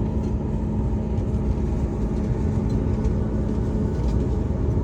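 Cabin noise of a jet airliner taxiing after landing: a steady low rumble from the engines and the rolling wheels. A steady hum under it fades about four seconds in.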